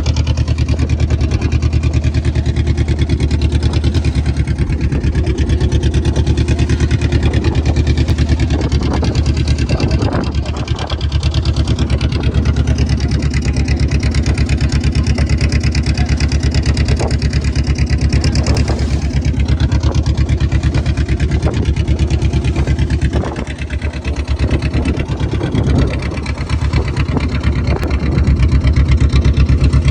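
Boat engine running at a steady speed with a fast, even chugging, dipping briefly in level about ten seconds in and again around 23 to 26 seconds.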